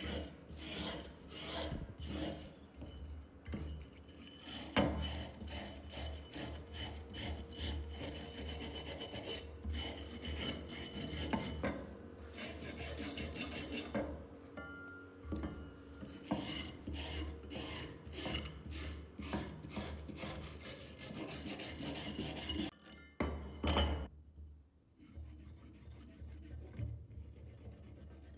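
Hand wire brush scrubbing rust off an old iron axe head in quick back-and-forth strokes, a rasping scratch two or three times a second. The strokes turn much fainter in the last few seconds.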